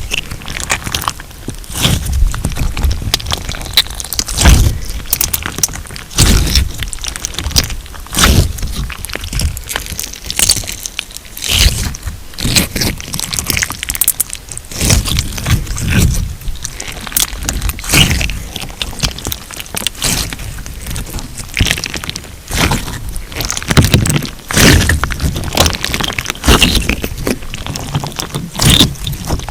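Thick putty-like crunch slime with embedded plastic glitter plates being squeezed and folded by hand: dense, irregular crackling and crunching, with louder squishes every second or two.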